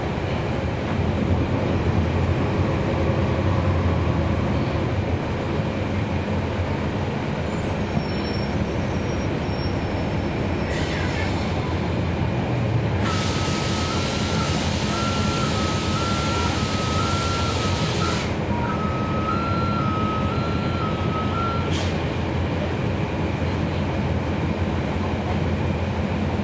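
Inside a 2011 NABI 416.15 transit bus, its Cummins ISL9 diesel engine running with a steady low drone. About halfway through, a long hiss of air starts together with an electronic warning beep alternating between two notes; the hiss stops after about five seconds while the beeping goes on a few seconds more, with a short hiss before and after.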